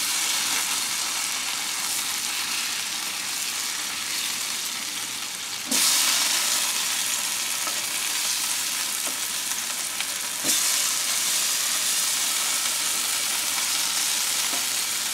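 Thick onion slices sizzling on a Blackstone E-Series electric griddle at 365°F, a steady hiss that jumps louder about six seconds in and again about ten seconds in as slices are flipped onto the hot surface. There are light scrapes and taps from a spatula and tongs.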